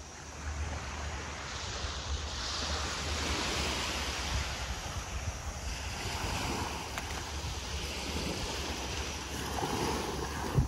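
Small waves breaking and washing up a sandy beach, the surf swelling and easing every few seconds, with wind buffeting the microphone as a low rumble.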